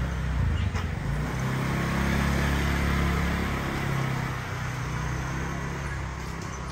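Road traffic, with a motor vehicle's engine running close by. The engine hum eases off after about four seconds.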